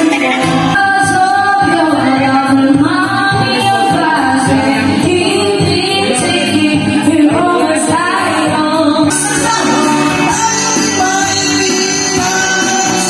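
Karaoke: a woman singing into a microphone over a backing track with a steady beat, through the bar's sound system.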